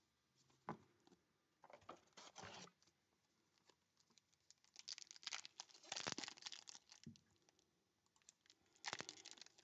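Foil trading-card pack crinkling and tearing as it is handled and pulled open, in short irregular bursts of crackle, loudest a little past halfway and again near the end.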